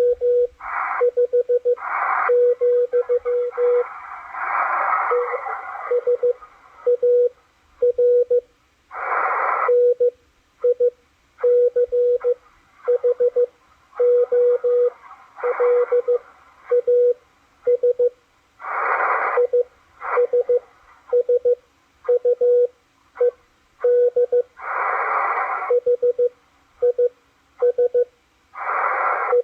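Morse code from W1AW coming through the Machilite DSP SDR receiver's speaker: a single steady tone of about 500 Hz keyed in dots and dashes, with bursts of hiss in some of the longer gaps between characters.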